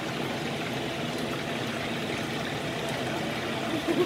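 Steady sizzling of mackerel steaks frying in oil in a pan, with a brief louder sound near the end.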